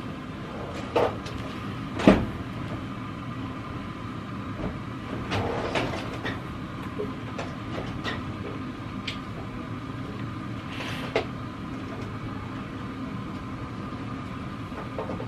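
A steady mechanical hum with a faint held tone, broken by scattered light clicks and knocks, the loudest about two seconds in.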